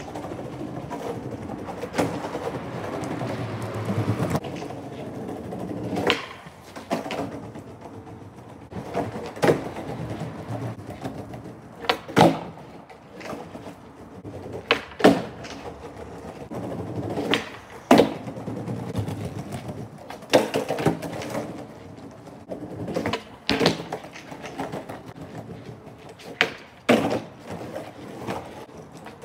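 Skateboard wheels rolling over a rough paved walkway, broken about a dozen times by sharp clacks as the tail pops and the board lands or slaps down on flatground tricks.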